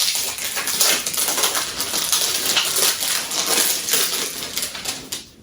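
Cellophane wrapping being pulled off a perfume box, crinkling and crackling steadily, then stopping near the end.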